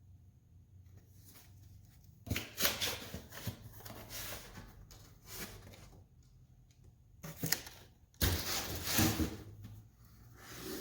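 Packaging being opened and handled by hand: irregular bursts of rustling and scraping, a couple of sharp clicks about seven seconds in, then a louder stretch of rustling.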